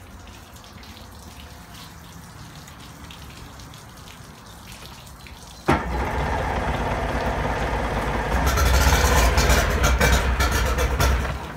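Yamaha outboard motor key-started about halfway in: it catches at once with a sharp start and runs steadily. A couple of seconds later it gets louder and brighter as it is revved, then it is shut off abruptly near the end.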